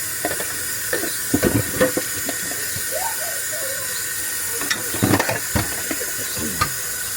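A steady hiss with a few short knocks and bumps, about a second and a half in and again about five seconds in.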